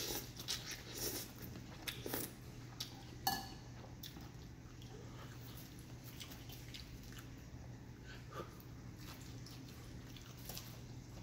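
A person slurps noodles in several loud slurps over the first few seconds, then chews more quietly. A steady low hum runs underneath.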